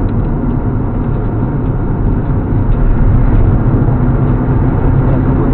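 Honda Civic engine running steadily under way, heard from inside the cabin, mixed with road and wind noise.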